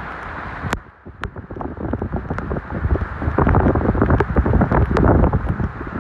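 Gusty tropical-storm wind buffeting the microphone. It drops briefly about a second in and grows louder from about three seconds in, with a few sharp ticks.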